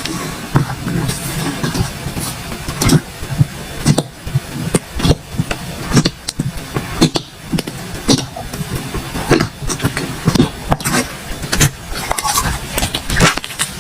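Slime being squeezed and stretched by hand, giving irregular wet clicks and pops, several a second.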